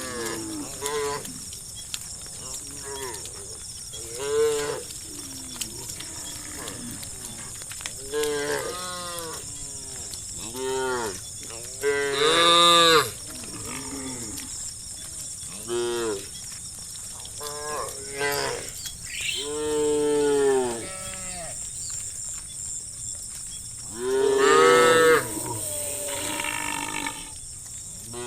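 Herd of cattle mooing again and again, many short calls at irregular gaps, with two longer, louder moos about halfway through and again near the end.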